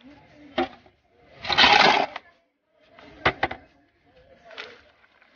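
Potting soil mixed with compost being scooped with a metal hand scoop and tipped into a plastic tub: a few scrapes and sharp clicks of the scoop, and a loud rushing pour of soil about a second and a half in.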